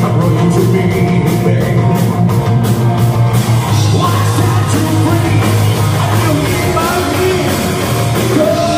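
Live rock band playing: electric guitars, bass and drums with a male singer singing into the microphone.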